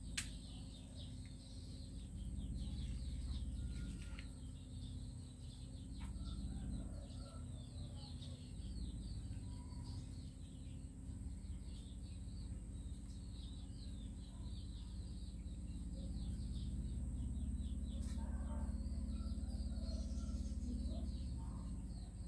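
Outdoor ambience of birds chirping in quick, repeated twitters throughout. A steady high-pitched tone runs behind them, over a low rumble.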